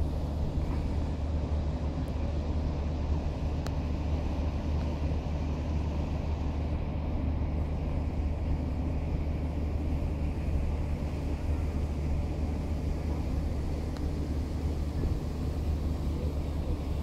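A steady, low rumble of distant engines that holds unchanged throughout, with a faint hiss above it.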